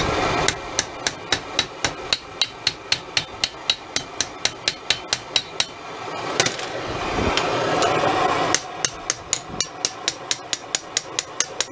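Hammer striking a heated steel sill repair panel held in a vise, in two fast runs of blows at about three to four a second, with a few seconds of steady rushing noise between them. The metal is being beaten down into itself to shrink it and shape its curve.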